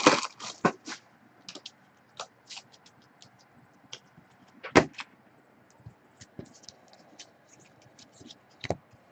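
Trading-card pack wrappers crinkling and cards being handled: scattered short crinkles and clicks, a cluster at the start and a louder crackle about five seconds in.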